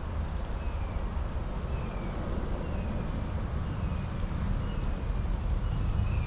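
Steady low rumble with a rushing, water-like noise, and a bird repeating a short falling chirp about once a second.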